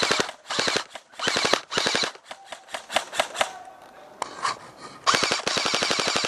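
Airsoft guns firing rapid bursts of sharp clicking shots: several short bursts in the first three seconds, a lull, then a longer continuous burst from about five seconds in.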